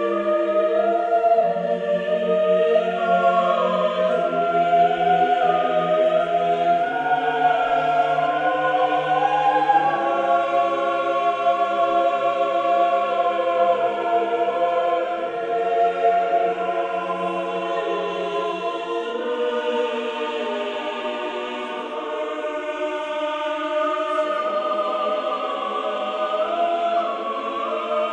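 Background music: a choir singing slow, sustained chords that shift every second or two.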